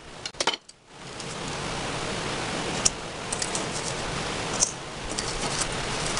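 Steady hiss with a few scattered light clicks and taps as packed brown sugar is added to a stainless steel mixing bowl holding butter.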